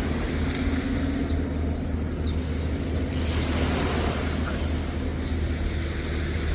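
A steady low engine drone over wind and surf noise, with a few short, high bird chirps between about one and two and a half seconds in.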